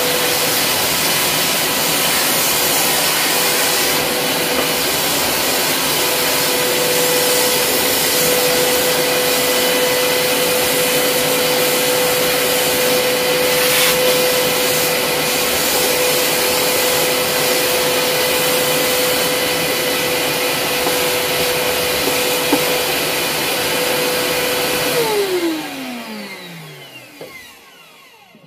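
Evolution 400 W power file (narrow-belt file sander) running with a steady whine. About 25 seconds in it is switched off, and the whine falls in pitch and fades as the belt and motor spin down.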